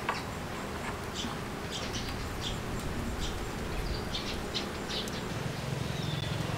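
Small birds chirping, short high chirps scattered irregularly, over a low steady hum that rises a little near the end.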